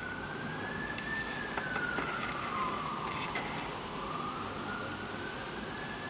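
An emergency vehicle's siren wailing slowly up and down, dipping lowest about halfway through and rising again near the end, over the steady hiss of heavy rain with a few sharp ticks.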